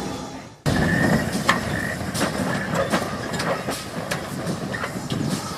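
The rumble of passing railway coaches fades out, then gives way to a steam locomotive moving away along the track: a steady rushing noise with irregular clicks and clanks.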